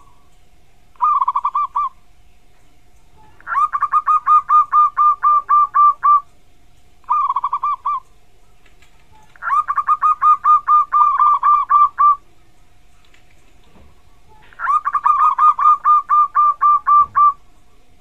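Zebra dove (perkutut) singing: phrases of rapid, evenly repeated cooing notes, two short ones and three longer runs of about three seconds each. A faint steady hum lies underneath.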